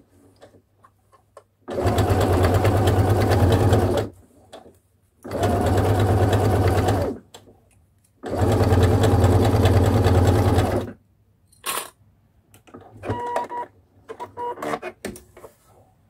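Pfaff electronic sewing machine stitching in three runs of about two seconds each, with short pauses between, as it sews the second, enclosing pass of a French seam. A few clicks and short beeps follow near the end.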